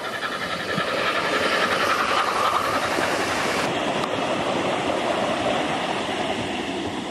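O gauge model A4 pacific locomotive and its express coaches running past on garden track: wheels rumbling and clicking over the rails, louder over the first second as the train comes close, then steady.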